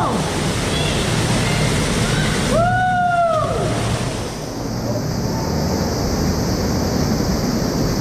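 Small cave waterfall pouring into a pool, a steady loud rush of water that turns duller about halfway through. About three seconds in, a person gives one drawn-out shout that rises and falls.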